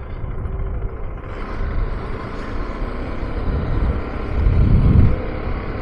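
KTM 390 Adventure's single-cylinder engine running at low speed under a steady wind rumble on the microphone. A louder low rumble swells briefly about four and a half seconds in.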